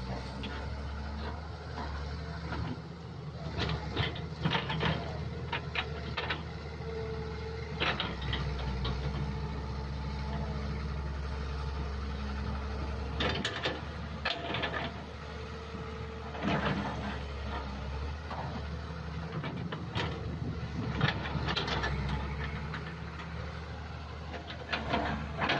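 Crawler excavator's diesel engine running steadily while it digs wet mud, with repeated sharp clanks and knocks from the working bucket and arm.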